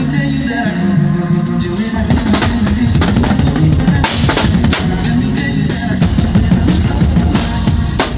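Live drum kit played hard: bass drum, snare hits and repeated cymbal crashes, with a band's bass line underneath.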